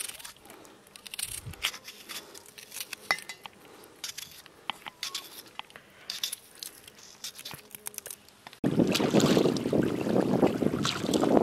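Knife slicing a tomato held in the hand over a metal bowl: scattered soft cutting clicks and squishy scrapes. About eight and a half seconds in, the sound switches abruptly to loud wind buffeting the microphone.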